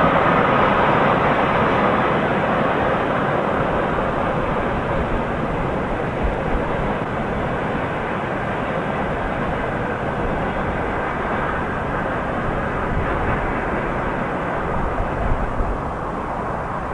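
Freight train rolling away along the rails, a steady rushing rumble that slowly fades.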